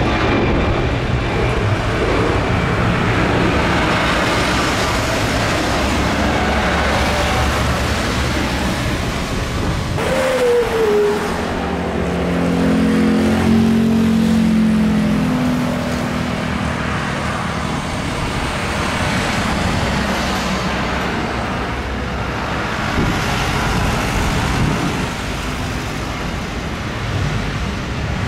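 Jet airliners taking off, their turbofan engines at takeoff power: first an Airbus A330 climbing out, then, after a cut about ten seconds in, a Boeing 737-800's engines on its takeoff roll and rotation. The noise is loud and steady throughout, with a brief falling whine and a few steady engine tones just after the cut.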